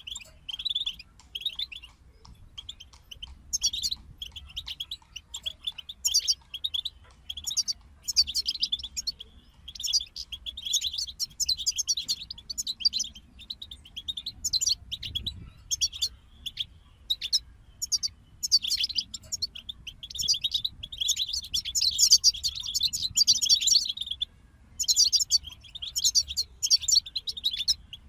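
European goldfinches singing: rapid twittering phrases of quick high notes, coming in bursts with brief pauses between them.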